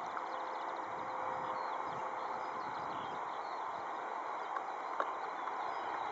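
Steady jet engine noise from a taxiing Boeing 767-300 running at taxi idle, an even hum without change. Faint bird chirps sound high above it, and there is a single sharp click about five seconds in.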